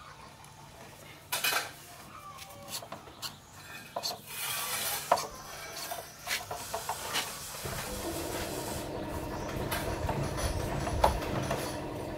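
Metal hand tools clinking and knocking as a socket wrench is worked on a bolt of a motorcycle's engine, with scattered sharp clicks. About eight seconds in, a steady mechanical drone comes up underneath.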